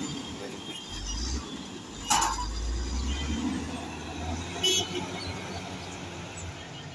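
Passing road traffic and heavy engines rumbling steadily. A sharp loud knock comes about two seconds in, and a brief high squeal or horn note near five seconds.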